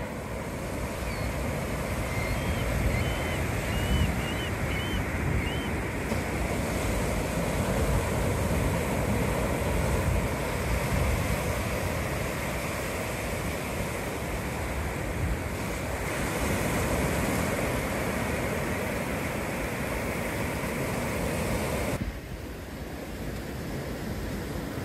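Ocean surf washing in a steady rush, with a few short bird chirps in the first several seconds. About 22 seconds in it drops suddenly to a quieter, duller rush.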